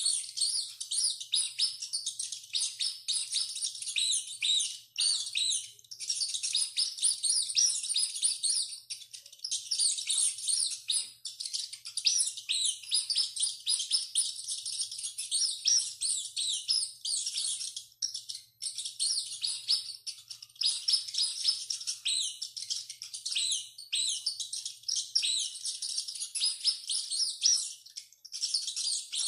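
Rats squeaking: a dense, continuous stream of rapid high-pitched squeals and chittering, broken by a few short pauses.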